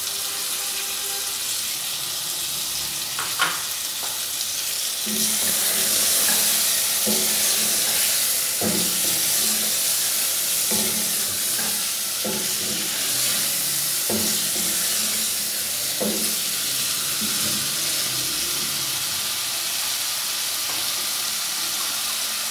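Chicken and chopped tomatoes sizzling in a saucepan of masala, with a steady hiss that grows louder about five seconds in. A wooden spatula stirs the mixture, knocking against the pot every second or two.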